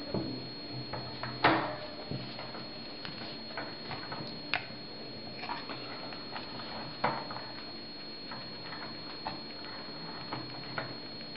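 Scattered light clicks and taps from hands and a feeding spoon being handled at a table, with one louder knock about a second and a half in, over a steady faint high-pitched whine.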